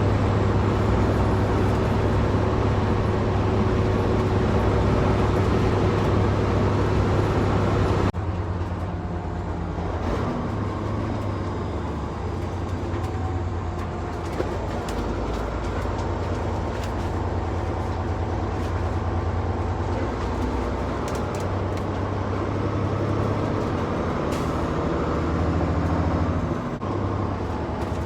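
Vehicle on the move, with steady engine hum and road noise heard from inside the cab. The sound drops abruptly to a lower level about eight seconds in.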